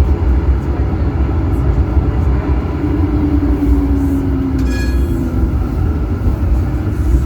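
Tram running along the line, heard from the driver's cab: a steady low rumble, with a motor tone that falls slightly in pitch between about three and five seconds in, and a short high ringing tone near five seconds.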